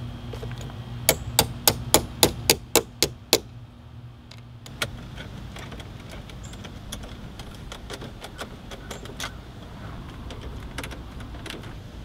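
A socket ratchet clicks in a quick, even run of about nine clicks, roughly three a second, as the car battery's terminal clamp is tightened back on. After that come scattered faint clicks and ticks from a screwdriver working at the radio in the dash.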